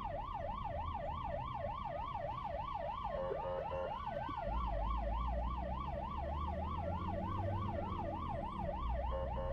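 Emergency-vehicle siren in a fast yelp, its pitch sweeping up and down about four times a second. A second, slower wailing siren rises and falls faintly behind it, and a low traffic rumble grows from about halfway through.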